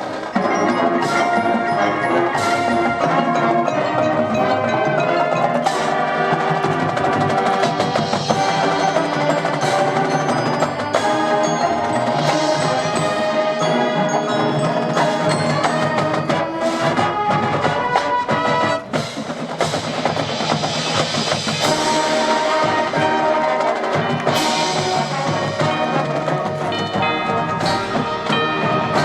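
High school marching band and front-ensemble percussion playing a field show, with struck pitched percussion prominent among sustained chords.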